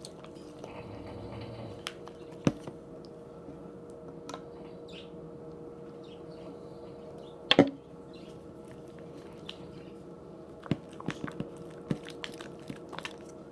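Glue slime being mixed and squished, wet sticky sounds with scattered sharp clicks and knocks, the loudest about a third and halfway through, and a cluster near the end, over a faint steady hum.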